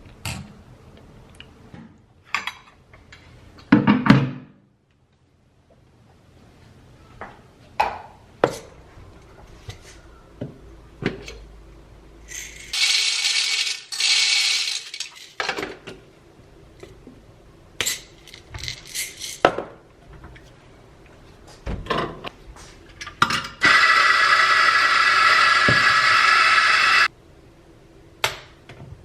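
Kitchen work: dishes, cutlery and utensils clinking and knocking one by one, with a short hiss about halfway through. Near the end a loud, steady whir lasts about three and a half seconds and then cuts off suddenly.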